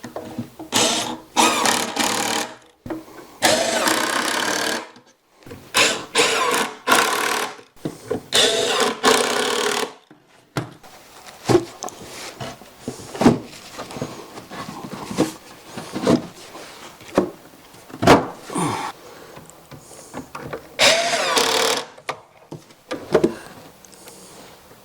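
Power driver sinking #8 x 2-inch epoxy-coated wood screws with a T25 bit into the wood, in four bursts of one to two seconds, the motor's pitch shifting as each screw goes in. Then scattered sharp knocks and clicks, and one more short driving burst a little after twenty seconds.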